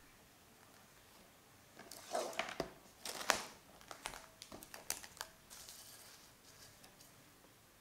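Plastic cling film crinkling as it is stretched and pressed over the rim of a glass bowl: a run of crackles lasting about three seconds, with the sharpest snap near the middle.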